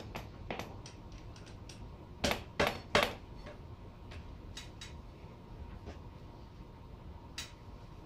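Metal clinks and knocks as parts are handled while a motorcycle front wheel is fitted between the forks. Three sharper knocks come close together a little over two seconds in, among lighter scattered ticks.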